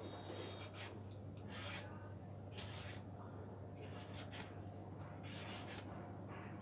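Vegetable peeler scraping the green skin off raw bananas in short rasping strokes, about one a second, over a faint low steady hum.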